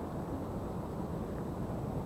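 Steady low background rumble with no distinct sounds in it.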